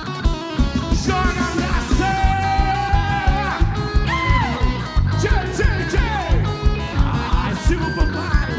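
Live axé band playing an instrumental passage: a steady, fast beat from drums and bass, with a lead melody that slides and bends in pitch over it.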